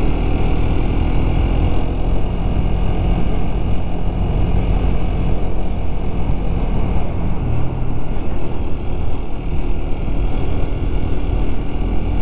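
Motorcycle engine running at steady road speed, picking up speed a little, under a heavy rush of wind on the microphone.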